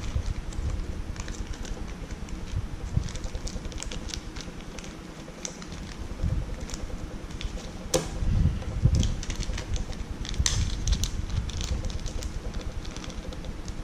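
Small lock pins being picked out and set into a Kwikset lock cylinder's plug, with scattered light, irregular clicks over low handling noise and a few sharper clicks.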